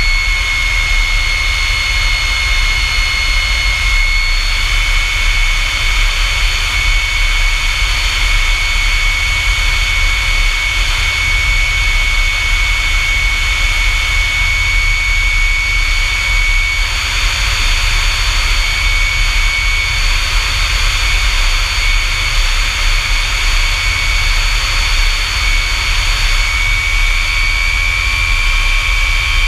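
F-100 Super Sabre's Pratt & Whitney J57 turbojet running steadily: a loud, even high whine over a rushing hiss and a low rumble, its pitch shifting slightly a few times.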